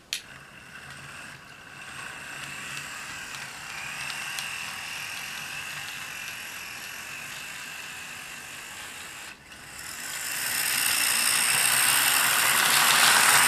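Small electric motor and gears of a model train switcher locomotive whirring steadily as it runs along the track under power. It grows louder and brighter about ten seconds in. The whir shows that the old locomotive runs.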